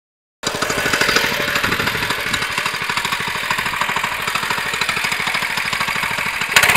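Small motor of a homemade vehicle built around a refrigerator motor, running with a rapid, even pulsing; it turns suddenly louder near the end.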